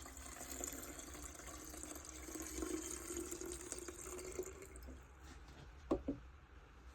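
Two-stroke premix fuel being poured into a leaf blower's fuel tank, a faint trickling fill that stops about five seconds in. A couple of short knocks follow near the end.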